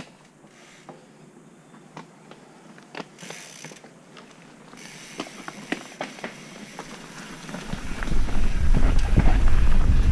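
Mountain bike rolling down a dirt trail: scattered clicks and rattles from the bike's drivetrain and freehub and the tyres over roots. From about eight seconds in, a loud low rumble of wind and tyres builds as the bike speeds up.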